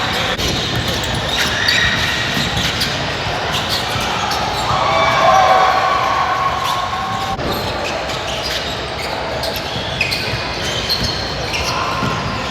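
Basketball game sounds in a gym: a ball bouncing on the court and short high squeaks over a steady echoing background of spectators' voices.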